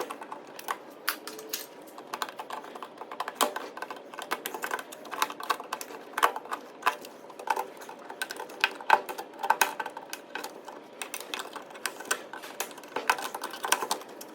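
Dense, irregular metallic clicking and tapping of hand tools working against metal and plastic parts, as a stubborn brass rod is worked loose from the UPS.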